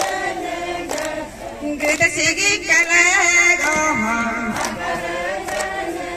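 A group of Galo festival dancers singing a traditional chant together, with a woman's voice leading over a microphone. Sharp taps fall roughly once a second in time with the dance.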